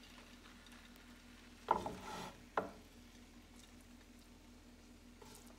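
A slotted spatula scraping and tapping as stir-fry is served from a skillet onto a plate: a short scrape about two seconds in, then a single sharp tap. The rest is faint room hum.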